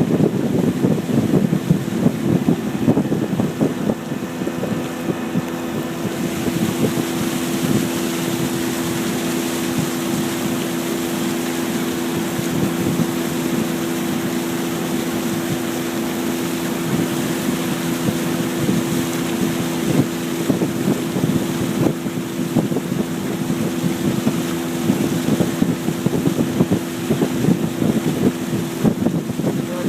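Boat motor running at a steady speed, with wind buffeting the microphone and water rushing past.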